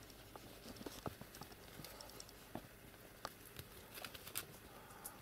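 A kitten jumping and batting at a hanging toy on a bed: faint, irregular soft taps and scuffles of its paws on the blanket and the toy.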